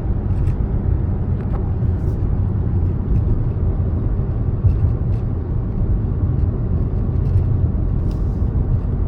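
Steady low road and engine rumble inside a SsangYong Torres cruising at motorway speed.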